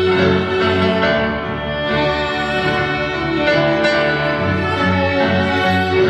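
Grand piano played solo in a live concert: repeated low bass notes in a steady pulse beneath ringing chords and a melody.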